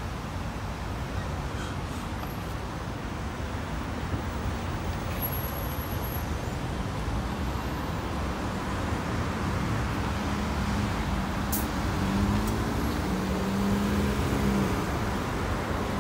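A London bus running past at close range, a steady low engine rumble amid road traffic. The engine hum grows louder in the second half as the bus moves on.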